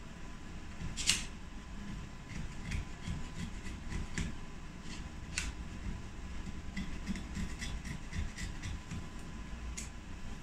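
A metal blade tool scraping laser-loosened glue residue off an iPhone 8 Plus housing, the glue breaking away in flakes. There are scattered sharp clicks and scrapes, the loudest about a second in, and a quick run of small ticks in the second half.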